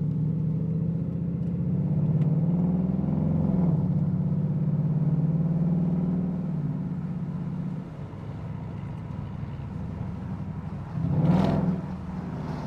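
Car engine under hard acceleration, a deep hum that climbs slightly in pitch and holds loud for several seconds, then eases off about eight seconds in. A brief louder rush comes near the end.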